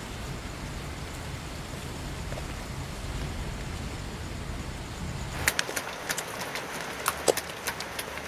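A steady low outdoor night ambience. About five and a half seconds in it gives way to a quieter scene with a scatter of sharp, irregular small clicks and ticks.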